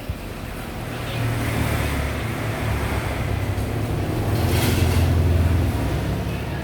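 A motor vehicle's engine rumbling past close by, growing louder over the first few seconds, then easing off near the end.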